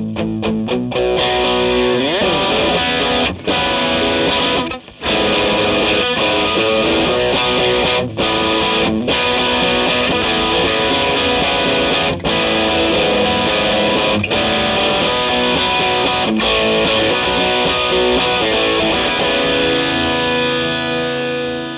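Electric guitar played through the B1 Fuzzstortion pedal, a silicon Tone Bender-style fuzz with a RAT-style filter, giving a thick distorted tone. Sustained chords and riffs with a few brief stops between phrases.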